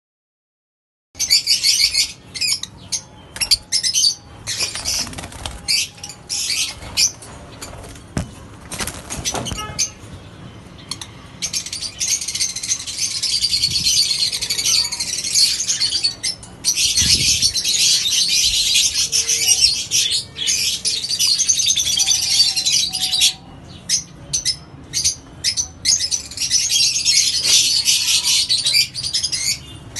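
Caged birds chirping and chattering in rapid high-pitched calls, first in short bursts and then in long stretches of continuous chatter. It begins after about a second of silence.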